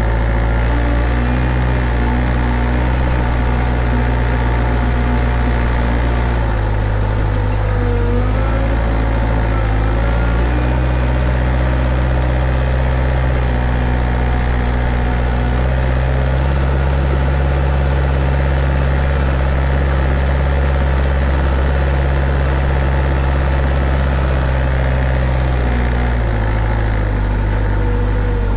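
Engine of a truck-mounted piggyback forklift running close up while it drives, its note stepping up and down a few times as the throttle changes. A fainter whine dips and rises about eight seconds in.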